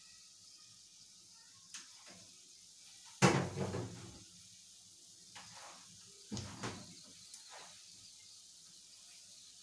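Kitchen handling sounds over a faint steady low hum: one loud knock a little over three seconds in, like a door or cupboard shutting, then a few lighter knocks and clatters.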